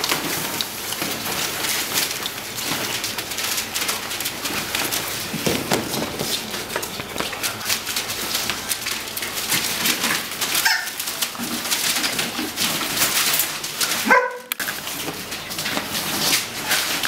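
Puppies scrambling over newspaper, the sheets rustling and crackling, with a short puppy whimper about ten and a half seconds in and a louder yelp around fourteen seconds in.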